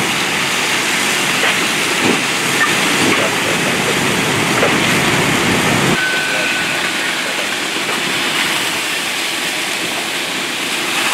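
Fire hose streams spraying water with a steady rushing hiss over the low running of fire apparatus. The mix changes abruptly about six seconds in, with less low rumble after.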